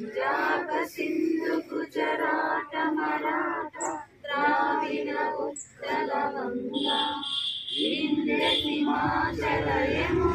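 A mixed group of adults and children singing together in unison, in phrases with short pauses between them.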